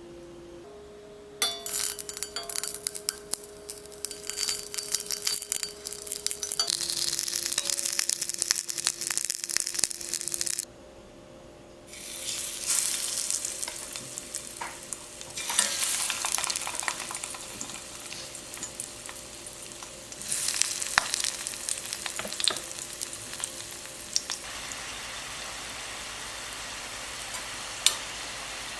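Buttermilk pancake batter sizzling and crackling on a hot pancake-waffle maker, in stretches that start and stop, with a short break about a third of the way in.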